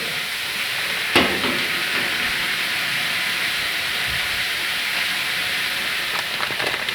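Steady hiss throughout, with one sharp click about a second in and a few lighter clicks near the end, as washing-machine parts are handled during a switch replacement.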